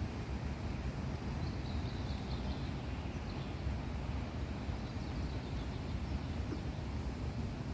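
Steady low outdoor rumble with no clear source, with a few faint high bird chirps about one and a half to two and a half seconds in.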